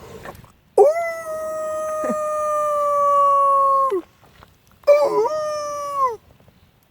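Two dingo-style howls: a long one held on one pitch that drops away at the end, then a shorter one that dips and falls.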